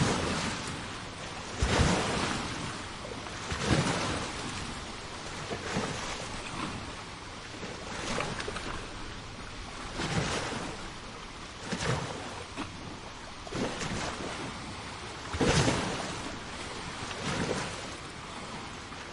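Sea waves washing onto the shore, a steady rush of surf that swells in a surge about every two seconds.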